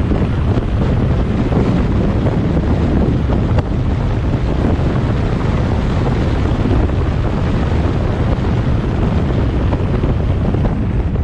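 Wind rushing over the microphone of a moving vehicle, mixed with road noise: a steady, loud, low rumble that stays even throughout.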